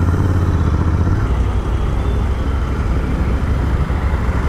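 Motorcycle engine running at low speed in town traffic, a steady low engine note heard from the rider's seat.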